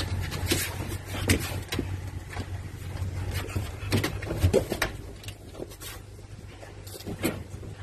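Newborn puppies squirming and crawling on a couch cushion and being handled, heard as scattered soft rustles and taps over a steady low hum.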